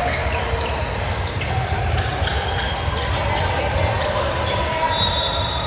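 Basketball game in a gym: a ball bouncing repeatedly on the floor over a steady hubbub of the hall, with a brief high squeak near the end.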